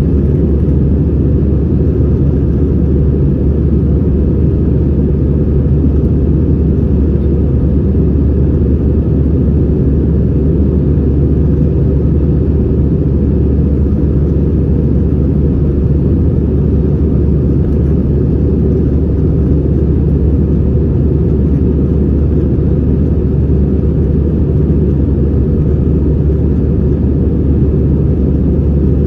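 Airbus A320-214 cabin noise: its CFM56 turbofan engines and the airflow make an even, loud, low rumble that holds steady without any change in pitch or level.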